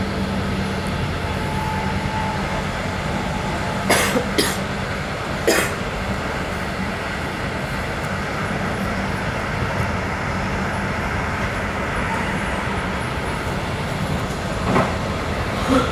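Alex regional train running along the track: a steady rolling rumble with a low hum, broken by sharp clacks, three close together about four to six seconds in and two more near the end.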